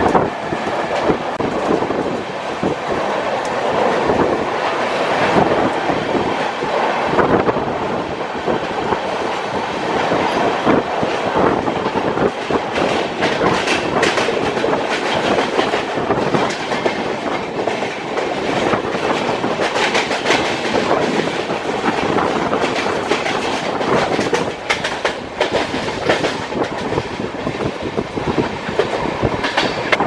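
Passenger train running at speed, heard from the open coach door: wheels clacking over the rails with a steady rush of wind and running noise. The clacks come more often in the second half.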